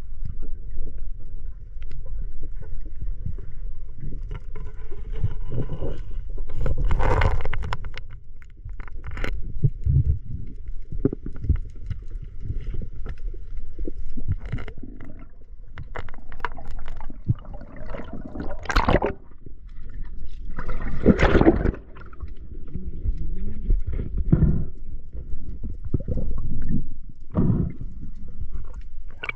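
Sea water sloshing and gurgling around the camera, with a steady low rumble and a few louder rushing surges about 7, 19 and 21 seconds in.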